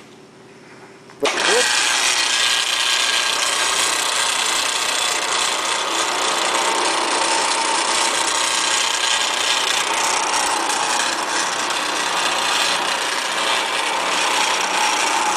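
A 14-inch bench band saw with a 1/3-horsepower motor is switched on about a second in, starting abruptly. It then runs steadily and loudly, idling with no cut being made.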